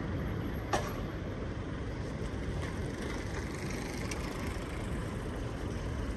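Street background noise: a steady low rumble of road traffic, with a single sharp click about a second in.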